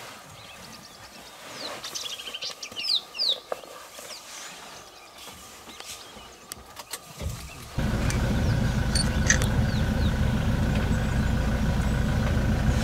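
A few short bird chirps. Then, a little past halfway, a safari vehicle's engine comes in suddenly and runs steadily and much louder.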